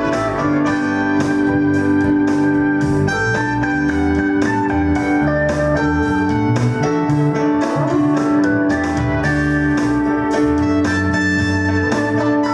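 Church music: held keyboard chords over a steady beat of about three strokes a second.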